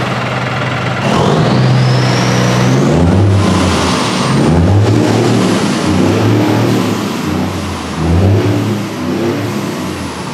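Scania truck diesel engine revved in several short blips, its note rising and falling, with a high turbo whine that climbs in pitch about a second in.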